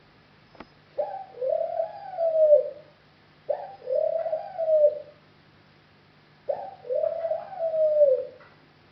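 A bird cooing three times, each coo a long call that rises and falls, with a short pause between. A faint steady hum and one click before the first coo.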